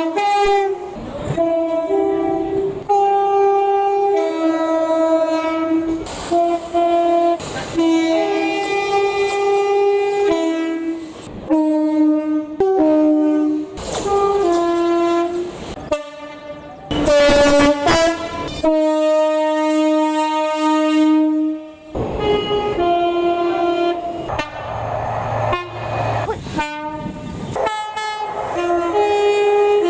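Train horns sounded over and over in a string of short and long notes that switch between a few pitches, played like a tune, with one long low note held for about three seconds near the two-thirds mark.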